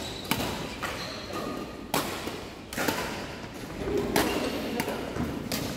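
Badminton rackets striking a shuttlecock in a rally: several sharp hits spaced a second or two apart, each ringing on briefly in a large hall.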